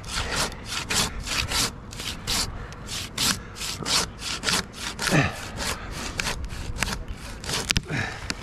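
Silky pruning handsaw cutting through white pine in steady, rhythmic strokes, about three a second.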